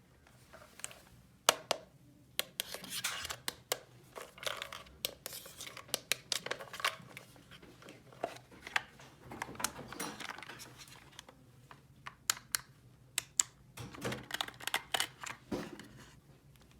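Small plastic toy pieces and packaging being handled: irregular sharp clicks and taps mixed with rustling and tearing.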